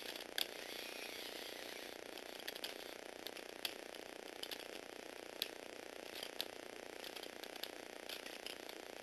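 Small Lego Technic robot's mechanism clicking irregularly, about one or two sharp ticks a second, the loudest near the start, over a steady hiss.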